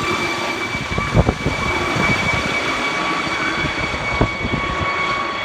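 Air ambulance helicopter climbing away overhead after take-off: rotor blades chopping over a steady high turbine whine.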